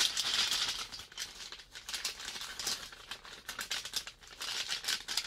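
Plastic MRE packaging crinkling and rustling as the food pouch is bent and worked down into the flameless ration heater bag: a dense run of small crackles, loudest in the first second.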